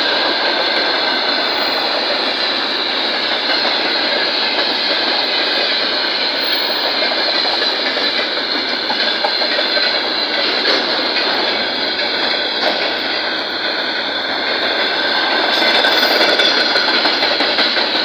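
VL80S electric locomotive running on the rails, with a loud, steady clatter and rumble of its wheels.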